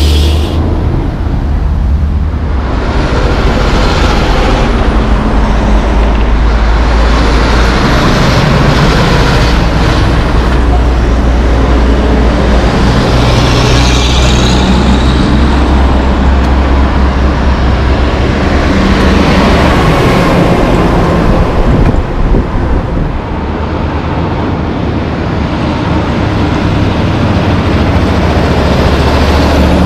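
Heavy diesel logging trucks passing one after another on a road among other traffic, their engines and tyres going by in a steady run of pass-bys.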